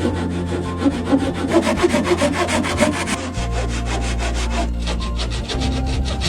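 Hand saw cutting through timber in quick, even back-and-forth strokes.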